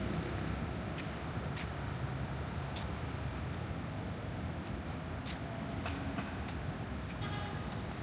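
City street ambience: a steady low rumble of passing traffic, with a few scattered sharp ticks.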